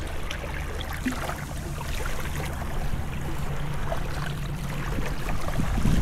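Small waves lapping and fizzing gently at the water's edge on a sandy beach, over a steady low rumble.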